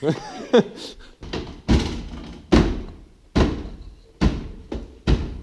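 Hammer blows on the Nissan Micra's sheet-metal body, struck at a steady pace of a little more than one a second, each a sharp bang with a short ring.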